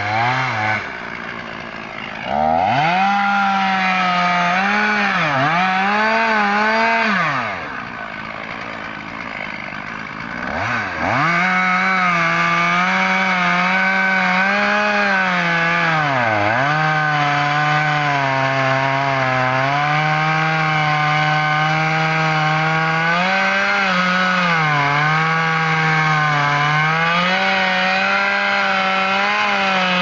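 Two-stroke chainsaw cutting into the base of a large tree trunk to fell it. It revs up a couple of seconds in, drops back to idle for about three seconds, then runs at full throttle in the cut, its pitch sagging now and then as the chain bites into the wood.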